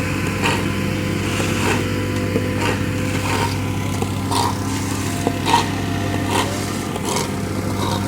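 An engine running steadily at a constant speed, with faint knocks or clicks about once a second.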